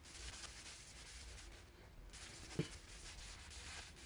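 A cloth wetted with methylated spirits rubbed over the bare oak surface of a bowl, a faint uneven scrubbing hiss. A single soft knock about two and a half seconds in.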